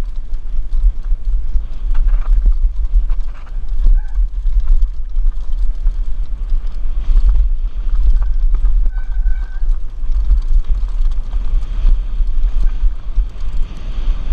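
Wind buffeting a helmet-mounted action camera during a fast downhill mountain bike run, with the Mongoose Pinn'r's frame and chain rattling and knocking over rough trail. A brief high squeak about nine seconds in.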